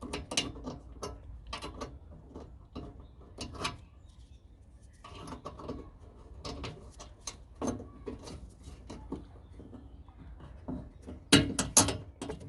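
Irregular clicks and knocks of engine-bay parts being handled and positioned while fitting a cold air intake, with a cluster of louder knocks near the end.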